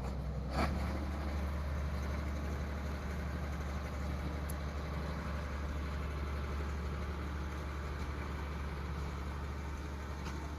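An engine running steadily, a low even hum, with one brief sharp knock about half a second in.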